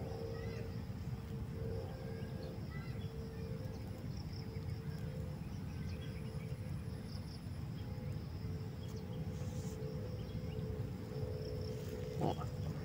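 Steady outdoor ambience of insects trilling without a break, over a low rumble, with a few faint chirps. A short low sound comes near the end.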